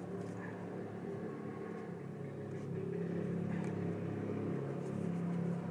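A motor vehicle's engine running steadily with a low hum, growing louder toward the end, with a few faint clicks.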